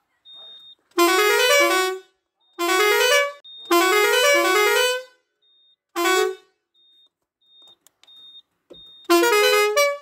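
Roots six-pipe air pressure horn playing short melodic tunes from its digital melody controller: five loud bursts of notes stepping upward in pitch, with pauses between them.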